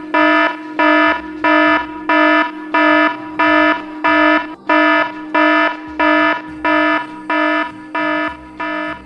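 Electronic alarm beeping in a steady on-off pattern, about three harsh beeps every two seconds, stopping near the end.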